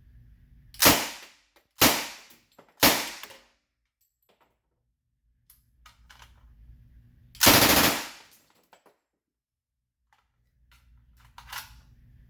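1928 Thompson submachine gun firing .45 ACP with a newly fitted ejector: three single shots about a second apart, then a short burst a few seconds later.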